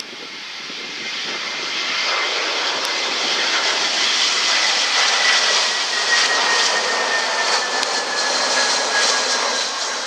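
Airbus A320's IAE V2500 turbofan engines at approach power as the airliner passes low on final approach, gear down. The noise grows louder over the first couple of seconds and then holds, with a high whine sliding slowly down in pitch as the aircraft goes by.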